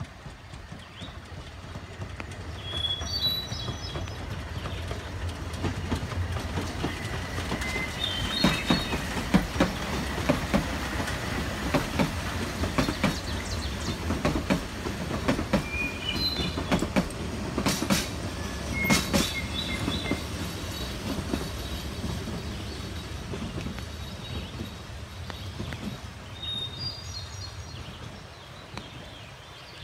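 Narrow-gauge steam train passing close by, its wheels clicking over the rail joints. The sound builds, is loudest in the middle, then fades as the train moves away. Birds chirp in the background.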